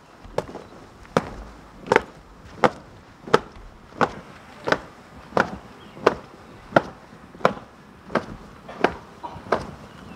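A marching troop's shoes stamping in unison in time, one sharp stamp about every two-thirds of a second.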